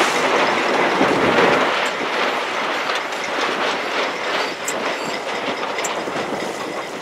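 Water splashing and rushing against the hull of a small boat underway in choppy water, with wind buffeting the microphone; loudest in the first couple of seconds.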